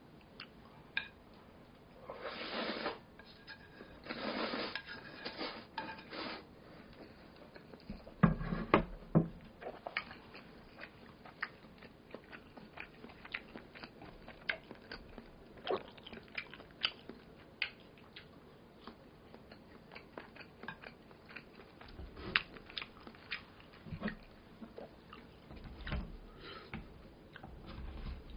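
Close-up mukbang eating sounds: chewing noodles and meatballs with small wet mouth clicks throughout, a couple of longer noisy bursts of eating early on, and a few sharper knocks of utensils against the bowl, the loudest about 8 seconds in.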